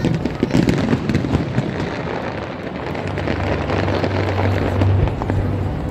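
Fireworks bursting and crackling, a dense run of sharp pops thickest in the first couple of seconds. From about three seconds in, a steady low hum joins them.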